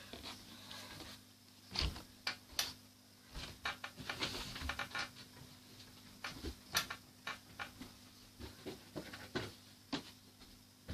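Crunchy slime with big beads being taken out of its plastic container and handled: scattered, irregular small clicks and crackles with short pauses between them.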